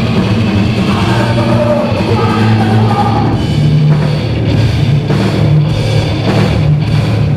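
Punk rock band playing on stage, with electric guitar, bass guitar and drum kit.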